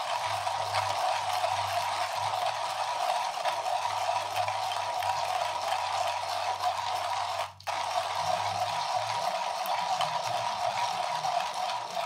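Comandante C40 manual hand grinder grinding espresso beans on an espresso setting: a steady crunching and rattle of the conical burrs as the crank is turned continuously. The grinding is smooth, without catching. The sound drops out very briefly about halfway through.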